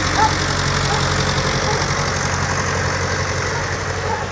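Ursus 912 tractor's four-cylinder diesel engine running steadily as the tractor drives past close by through snow.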